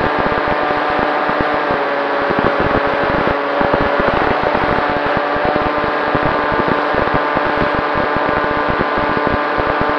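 FPV model aircraft's electric motor and propeller, heard through the onboard camera, whining steadily at a constant throttle, with wind buffeting the microphone in an irregular low rumble.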